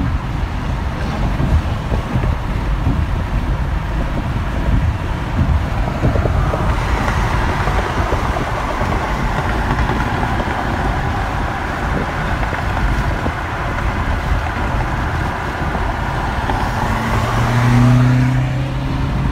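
Road and wind noise inside a car cruising at highway speed, with a brighter rush joining about six seconds in. Near the end a low, steady drone swells and is the loudest part, as the BMW M8 convertible runs alongside.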